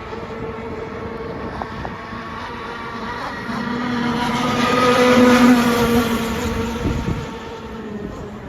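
Gas-powered RC boat engine running at speed on the water, a steady buzzing note that swells to its loudest about five seconds in and then fades as the boat passes by.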